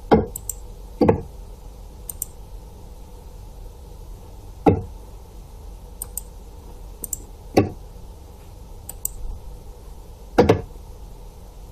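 Mouse clicks at a desk: five sharp, knocking clicks a couple of seconds apart, the first two about a second apart, with fainter high clicks in between, over a low steady hum.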